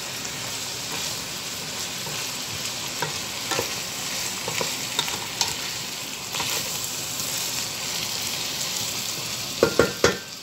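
Diced mixed vegetables sizzling steadily in a stainless steel pot, stirred with a wooden spoon that scrapes and clicks against the pot. Near the end come a few sharp knocks of the spoon on the pot, the loudest sounds here.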